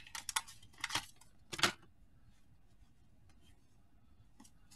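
Wax paper wrapper of a baseball card pack crackling as it is pulled off and the cards handled: a few short crackles in the first two seconds, then only faint small ticks.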